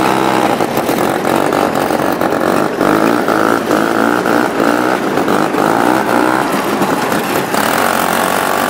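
Small vintage snowmobile engine running under way, its pitch rising and falling as the machine drives over the snow.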